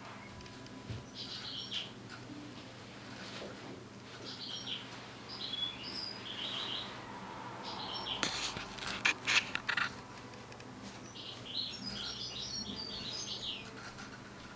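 European goldfinch twittering in short bursts of high, chattering song. About eight to ten seconds in there is a quick run of sharp clicks or taps, louder than the song.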